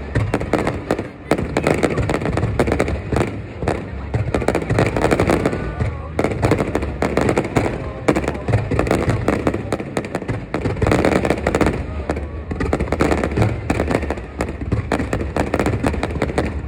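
Aerial fireworks bursting in quick, continuous succession: many overlapping bangs and crackles with no pause, over a crowd's voices.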